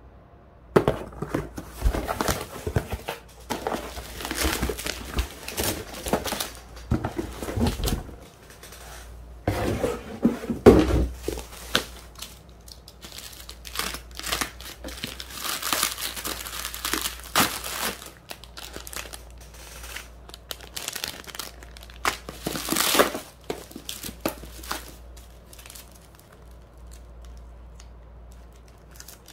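Cardboard box and bubble-wrap packaging handled and torn open by hand: irregular crinkling, rustling and tearing, with a utility knife slicing through the bubble wrap. There are dull knocks of the box in the first several seconds, and the rustling grows sparser and quieter in the second half.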